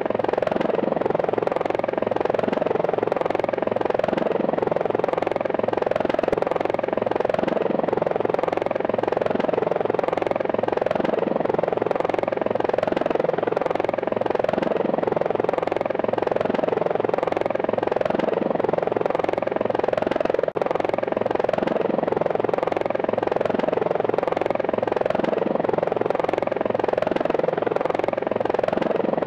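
Steady whirring buzz of quadcopter drone propellers, unchanging in pitch and level, with a momentary dropout about twenty seconds in.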